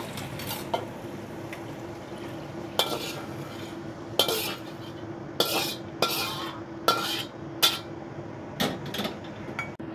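Cooking utensils clinking and scraping against a pan during stir-frying, with a series of sharp clinks from about three seconds in, over a steady hum.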